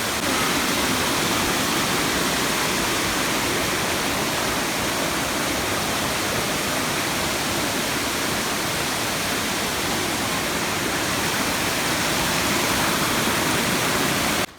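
A mountain waterfall rushing and splashing down several cascades, a steady, loud roar of falling water that stops abruptly near the end.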